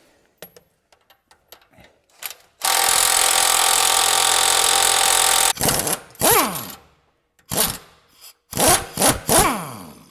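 Cordless nut driver spinning a castle nut off a truck's lower ball joint: one steady run of about three seconds, then three short trigger pulls, each ending in a falling whine as the motor winds down. A few light clicks come before the first run.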